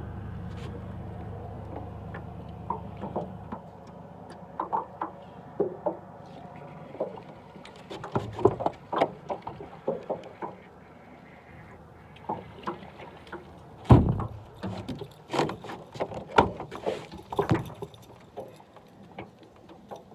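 Irregular knocks and clatter against a fishing boat, with one louder knock about two-thirds of the way through. A steady low hum is present at first and fades out a few seconds in.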